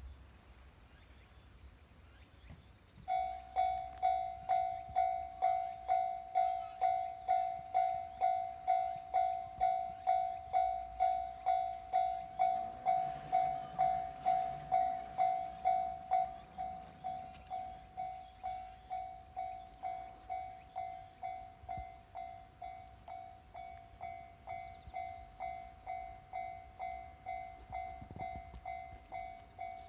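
Japanese railway level-crossing warning bell starting about three seconds in, an electronic clang repeating about twice a second, becoming quieter about halfway through.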